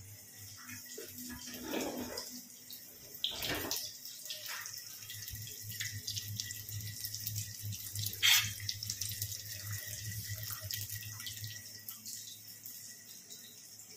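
Chicken burger patties shallow-frying in oil in a pan on a gas burner, sizzling and crackling steadily, over a low hum. Two sharp knocks stand out, about three and a half and eight seconds in, the second the loudest.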